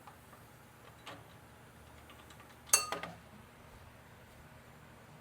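Metal tools and parts being handled: a few light clicks and knocks, and one sharp metallic clink about two and three-quarter seconds in that rings briefly.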